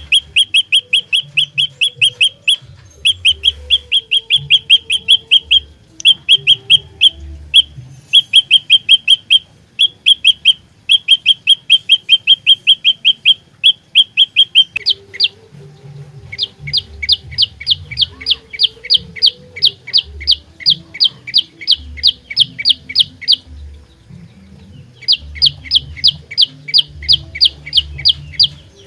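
Olive-backed tailorbird (prenjak lumut) singing: fast strings of sharp, evenly repeated notes, about six a second, in short runs; about halfway through the notes turn higher and come in longer runs.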